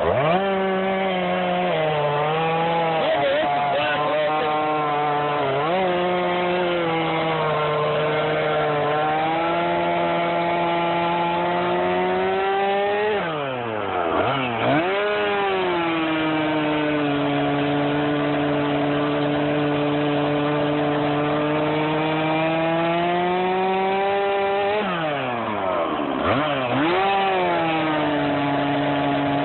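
Stihl MS461 two-stroke chainsaw with a 20-inch bar cutting up a dead black locust at full throttle, its engine note held steady and sagging slowly under load. Twice, about halfway through and again near the end, the revs drop sharply and climb back up.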